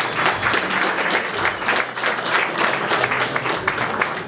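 Small audience applauding: many hands clapping at once, a dense, steady patter of individual claps.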